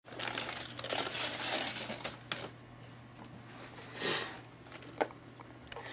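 Handheld rustling and handling noise for about two and a half seconds, then quieter, with a brief swell about four seconds in and a sharp click about a second later; a low steady hum runs underneath.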